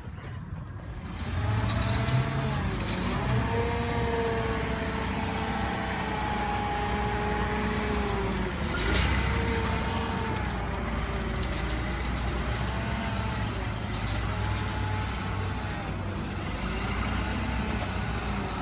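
A heavy vehicle's engine running, starting about a second in, with a whine over it that rises and falls in pitch.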